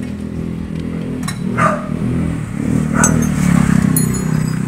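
A motorcycle engine idling steadily, with a few sharp metallic clinks of a tool against the chain sprocket.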